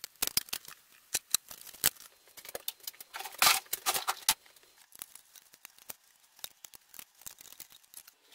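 Loose steel bolts, washers and a socket wrench clinking and clicking in irregular short knocks while a benchtop mini mill is unbolted from its bench, with a brief scraping rustle about three and a half seconds in.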